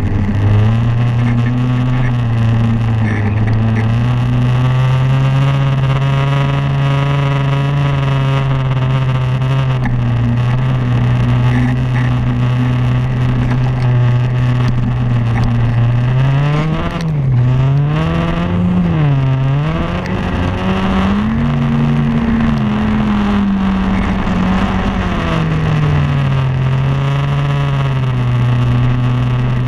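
Snowmobile engine running at a steady pitch. Past the middle its revs swing up and down several times, stay higher for a few seconds, then drop back to a steady pitch.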